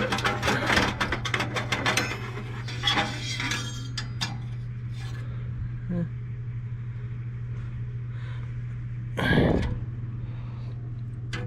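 Hand tools clicking and scraping rapidly against metal parts and wiring inside a gas furnace for the first few seconds, then only a few scattered knocks over a steady low hum, with a short louder burst of noise about nine seconds in.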